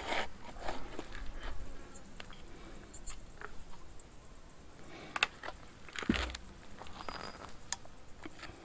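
Stihl 028 AVS chainsaw body being turned over by hand and set down on a stone slab: scattered light clicks and rattles from the plastic housing, with a couple of louder knocks about five and six seconds in.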